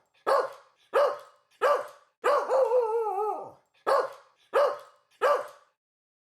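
Dog barking: three short barks about two-thirds of a second apart, then a longer wavering bark of just over a second, then three more short barks.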